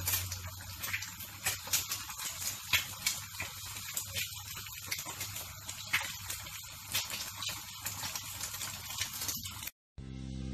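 Eggs frying in hot oil in a non-stick pan, sizzling with many small crackling pops as the whites are fried until crisp. The sizzle cuts off near the end and guitar music begins.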